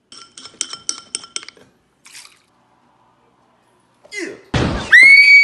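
A spoon clinking quickly against a glass bowl, about a dozen ringing taps in a second and a half. Near the end comes a rush of noise and a thump, then a very loud, high-pitched held scream.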